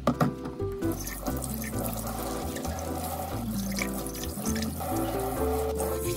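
Kitchen tap running into a stainless steel sink while glass jars are rinsed under it, the water starting about a second in, with a few sharp clinks of glassware near the start. Background music plays throughout.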